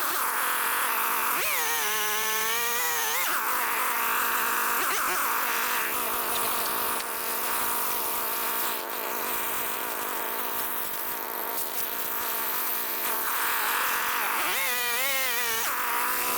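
Chainsaw running as it cuts through a log: a steady high buzz, with the engine pitch swinging up and down as it revs, once near the start and again near the end.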